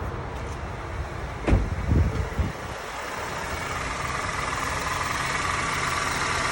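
2009 Honda Civic engine idling steadily with its newly replaced alternator and new drive belt, running without the growling that the old alternator made. A few loud thumps about one and a half to two and a half seconds in.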